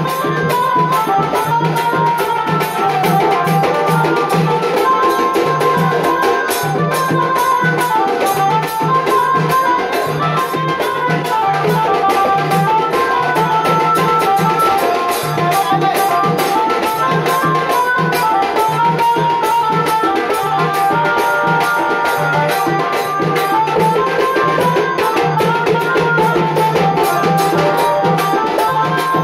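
Loud Indian folk-style music played through a sound system, with a steady drum beat, fast hand-drum-like percussion and a stepping melody line.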